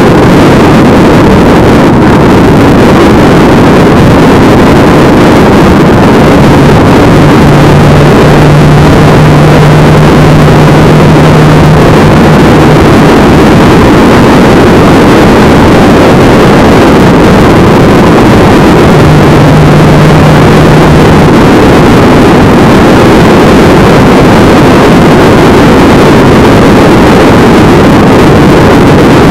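Loud, steady wind rush and road noise on the microphone of a vehicle travelling at road speed, with an engine's steady hum coming through about a quarter of the way in and again around two-thirds through.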